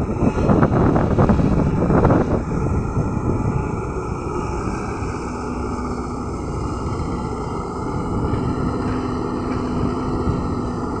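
Diesel engine of a LiuGong crawler excavator running steadily under load as it swings and digs, louder and rougher for the first couple of seconds. A faint steady hum joins in from about five seconds in.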